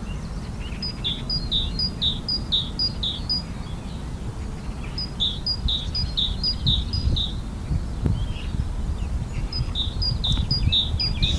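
Great tit singing its repeated two-note 'teacher-teacher' song: three runs of quick paired high notes a few seconds apart, over a low rumble.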